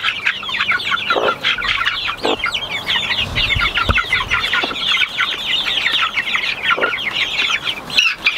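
Baby chicks peeping continuously in a dense, rapid chorus, with a few low clucks from the broody hen.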